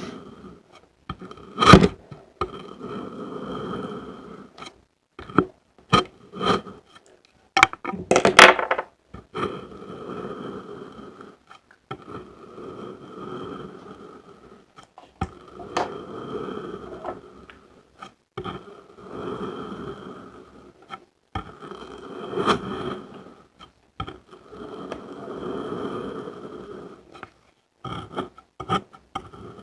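Colored kinetic sand being cut and crunched: runs of gritty scraping strokes separated by short silences, with sharp cracks now and then, the loudest about 2 and 8 seconds in.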